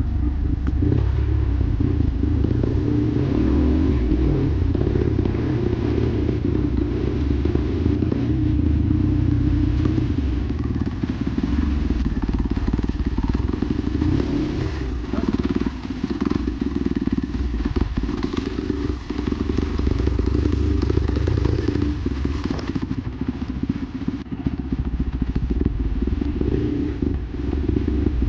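Dirt bike engine running steadily on a trail ride, easing off briefly a few times, with clatter and knocks from the bike over rough ground.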